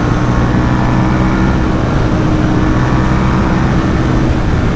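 Ducati SuperSport 950 S's L-twin engine running at steady revs under way, holding an even pitch, over a steady rush of wind noise.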